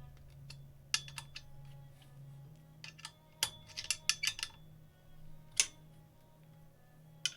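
Metal parts of a desk-clamp dual monitor arm clinking and clacking as they are handled and adjusted: about a dozen sharp clicks in irregular clusters. Faint background music with held notes underneath.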